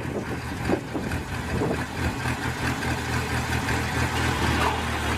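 A vehicle engine running steadily at a low, even hum.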